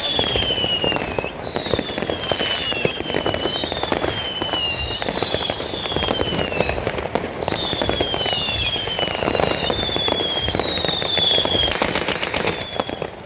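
Fireworks going off in quick succession: a dense crackle of bangs and pops, over which a string of high whistles each slide down in pitch, about one a second, with a cluster of stronger bangs near the end.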